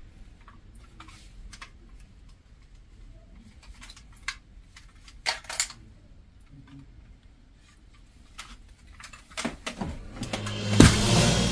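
Scattered clicks and knocks of a prop rifle being handled and worked, with two sharper clicks about halfway through. Music comes in near the end.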